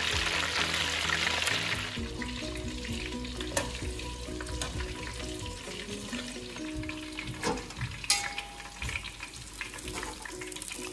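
Oil sizzling around crumbed whiting fillets shallow-frying in a cast-iron pot, loudest for the first couple of seconds and then quieter. A few sharp clinks of metal tongs as the fried pieces are turned and lifted out onto a wire rack. Soft background music underneath.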